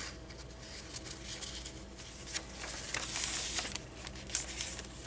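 Paper rustling with small taps as the pages of a handmade junk journal are handled and turned. The loudest rustle comes about three seconds in.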